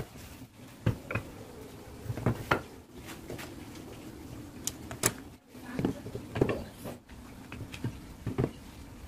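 Wooden strips, dark sonokeling rosewood and pale wood, being handled and laid down on a tabletop: scattered light knocks and clacks of wood on wood and wood on the table, a few seconds apart.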